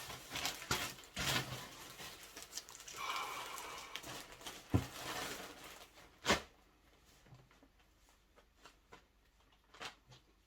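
Plastic clothing packaging rustling and crinkling as garments are unpacked and handled, with two sharp knocks about five and six seconds in, then only faint taps.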